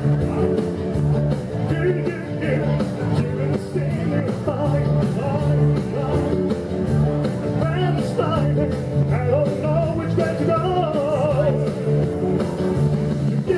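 A rock-and-roll song with a singing voice over a steady bass beat.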